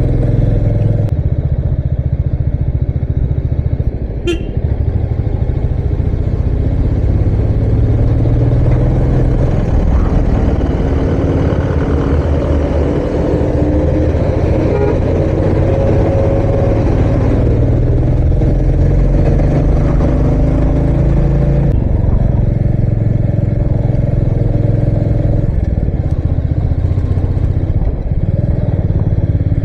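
Royal Enfield Meteor 350's single-cylinder engine running steadily on the move, its note drifting up and down in pitch through the middle as the throttle changes, with a brief sharp sound about four seconds in.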